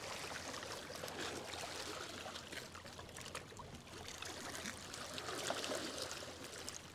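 River water lapping and trickling among rocks at the water's edge, a steady wash with a few faint clicks.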